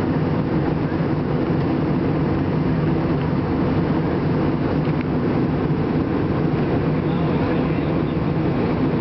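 Steady cabin noise of a jet airliner in flight: engine and rushing-air drone heard from a window seat, low and even with no change.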